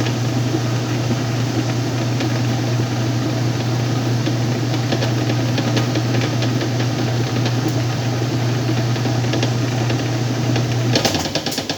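Whirlpool washing machine spinning: a steady motor hum with the drum whirring. Near the end the motor cuts off and the sound falls away with a few clicks.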